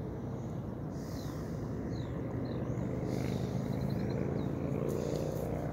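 Steady hum of a passing road vehicle's engine, building louder through the second half. A few short high bird chirps come through over it.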